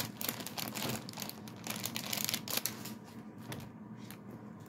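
Plastic toy packaging crinkling and rustling as it is handled, in quick irregular crackles that thin out after about three seconds.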